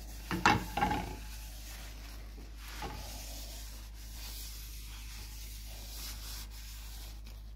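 Paper towel wiping across the dry, granite-coated surface of a frying pan: a few loud swipes in the first second, another near three seconds in, then softer rubbing.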